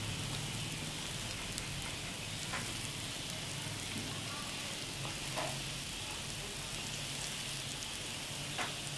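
Vada dosa frying in oil on a hot nonstick tawa: a steady sizzling hiss. Three faint brief scrapes come from a wooden spatula spreading the oil over the top.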